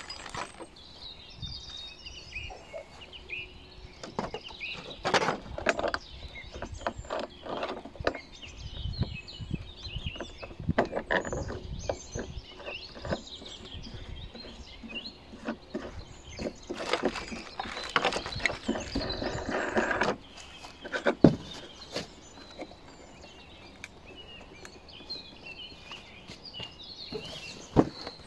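Handling noise from a cordless lawn mower being assembled by hand: rustling of a plastic parts bag and scattered clicks and knocks of plastic handle parts being fitted, with one sharper knock about three-quarters of the way through. Birds chirp in the background.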